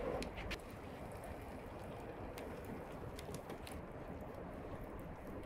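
Metal kebab skewers clink briefly on a charcoal grill as they are turned, then a steady faint hiss with scattered small crackles.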